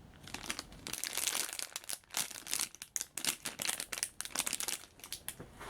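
Irregular crinkling of plastic packaging as a squishy toy is handled, with many short crackles close together.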